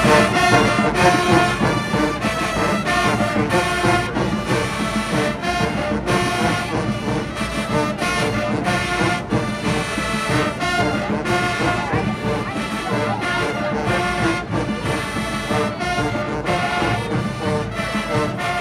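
High school marching band playing a field show: brass winds carrying the tune over a steady marching drum beat.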